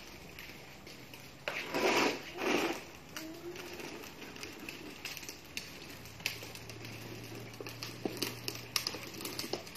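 Plastic wheels of a child's ride-on toy car rolling over rough concrete, with scattered clicks and crackles and two louder rushes of noise about two seconds in.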